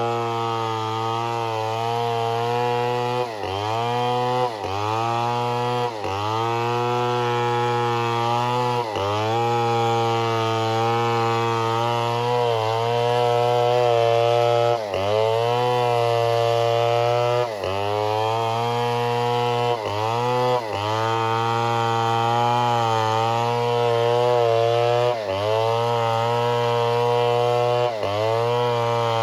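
Two-stroke chainsaw running under load while cutting wood, its engine pitch sagging briefly and recovering every few seconds as the chain bites into the cut.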